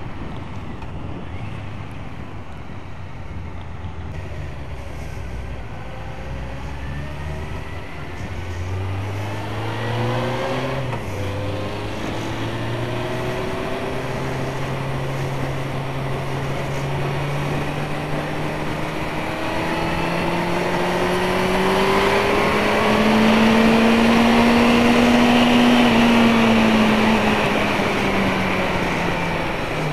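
Motorcycle engine running under way: the engine note climbs, drops at a gear change about eleven seconds in, then rises steadily for a long stretch and falls away near the end as the revs come down.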